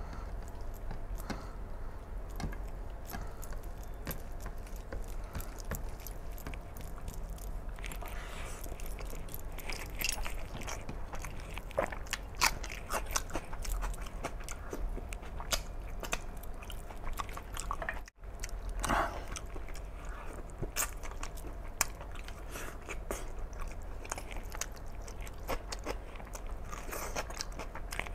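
A man eating and chewing mouthfuls of mutton curry and rice taken by hand, with many short mouth clicks; the sound drops out briefly about eighteen seconds in.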